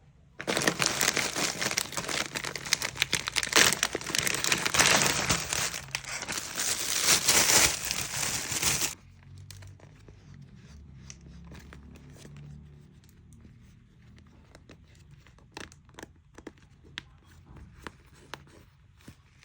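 Packaging of a pair of goalkeeper gloves being crinkled and torn open, loud and dense for about the first nine seconds. After that come quieter scattered light clicks and rustles of handling.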